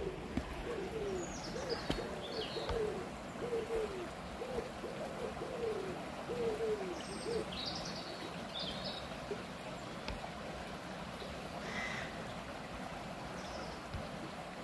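A pigeon cooing in a run of short, low, falling notes through the first half, with small birds chirping high above. Underneath is the steady rush of a shallow stream.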